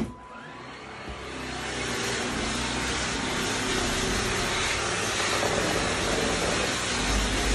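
Upright vacuum cleaner switched on with a click, its motor coming up to speed over about two seconds and then running steadily as it is pushed in stripes over the underside of a shaggy rug.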